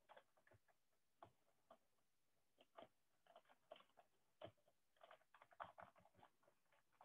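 Faint, irregular clicking of computer keyboard keys, coming faster in the second half.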